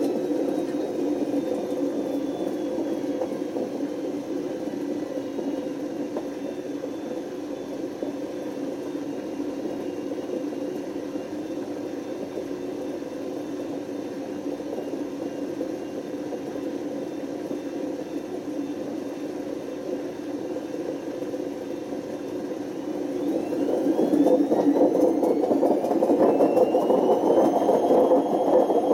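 Panasonic NA127VB6 washing machine with worn drum bearings running with a steady whir, its motor whine falling slightly at first. Near the end the whine rises in pitch and the machine grows louder as the drum speeds up.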